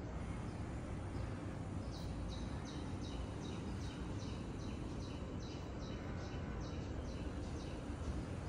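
A small bird chirping in a rapid series, about three high chirps a second, starting about two seconds in, over a steady low background rumble.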